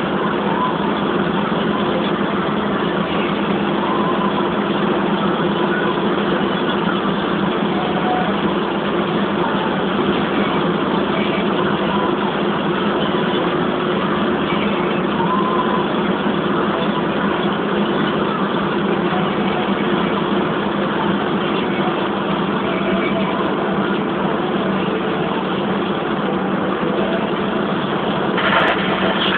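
Car driving steadily at speed: a constant engine hum under loud road and tyre noise, heard from inside the vehicle. A short knock sounds near the end.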